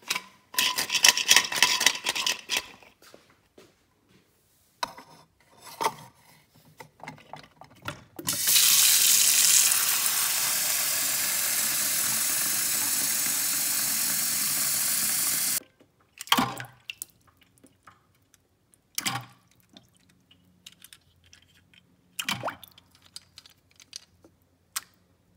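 Kitchen tap running steadily into a plastic bowl of small toy cars for about seven seconds, cutting off sharply. Before it comes a couple of seconds of irregular rattling and splashing. After it come a few separate knocks of the toy cars against the bowl.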